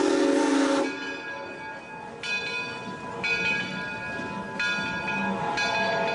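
A 4-4-0 steam locomotive's whistle sounding a hissy, chord-like blast that cuts off about a second in. It is followed by the locomotive's bell ringing, struck about once a second.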